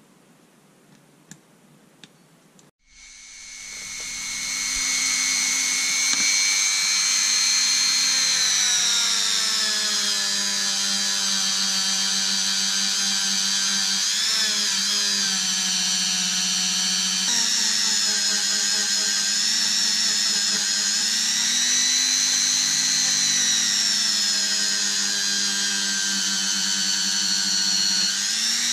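A few faint clicks, then a Dremel rotary tool starts about three seconds in and spins up to a steady high whine. A polishing wheel is run against the brass tip of a boxwood folding rule, and the whine's pitch dips and wavers now and then as the wheel is pressed on.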